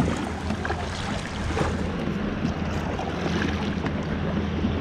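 Water splashing and lapping around the plastic hull of a NuCanoe Frontier 12 kayak as it is paddled, with wind on the microphone. A steady low hum runs underneath, dropping out briefly once or twice.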